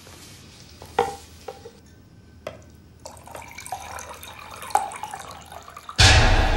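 A few light knocks, then water running from a water dispenser's push-lever tap into a drinking glass. Near the end a sudden, much louder rushing noise with a deep rumble sets in.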